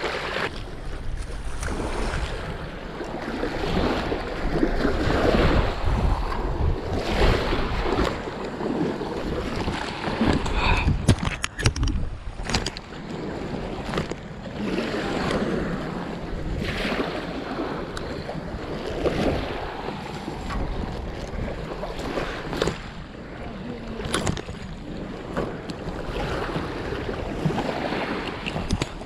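Small waves washing against a gravel and seaweed shoreline, with wind buffeting the microphone. A few sharp clicks stand out, mostly around the middle and later on.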